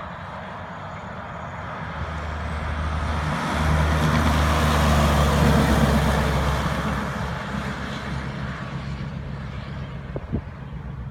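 A heavy diesel truck driving past: its engine and tyre noise build up, are loudest about four to six seconds in, then fade away.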